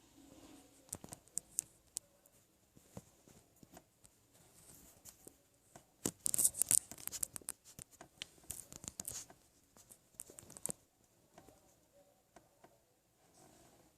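Irregular sharp clicks and crackles, in dense clusters about six and nine seconds in, from a switched-off, cold Honda Titan 160 motorcycle: an unexplained noise coming from the bike while it is not running.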